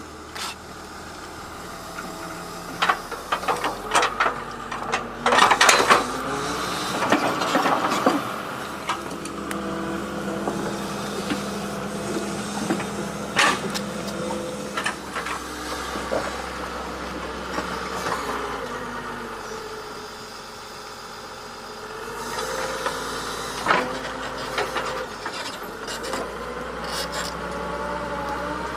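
Excavator engine running steadily, with a whine that shifts in pitch and several sharp knocks and clanks, a few seconds apart, as the machine digs.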